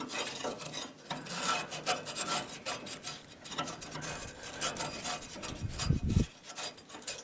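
Irregular scraping and rubbing strokes, with a brief low rumble about six seconds in.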